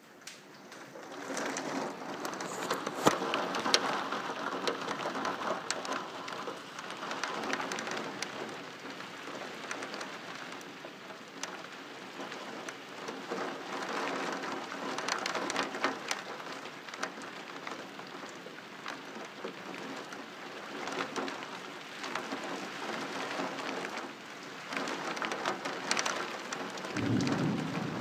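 Heavy thunderstorm rain pouring down, with many sharp drop hits, swelling and easing in gusts. A brief low rumble comes near the end.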